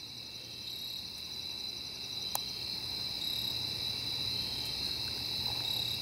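Crickets chirping in a steady, high, continuous trill, with one sharp click about two and a half seconds in.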